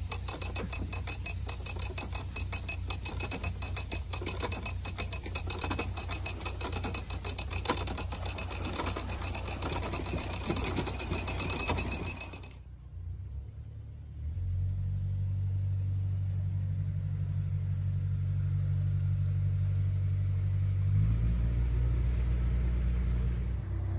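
Rapid, even clicking of a canal lock's paddle-gear ratchet as a windlass winds the paddle up, over a low rumble. About halfway through the clicking stops, and a narrowboat's engine idles steadily, its note shifting slightly near the end.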